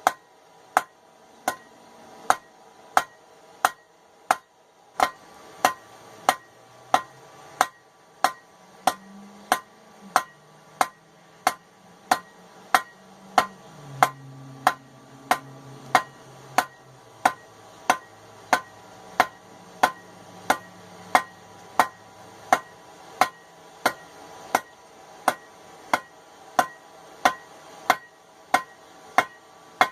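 Hand hammer striking hot steel on an anvil in a steady, even rhythm, about three blows every two seconds, each blow leaving a ring. This is the stock being drawn out to a point for a tong bit.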